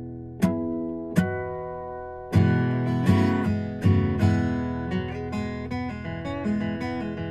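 Background music on acoustic guitar: two single chords strummed and left to ring, then a steadier strumming pattern from about two seconds in.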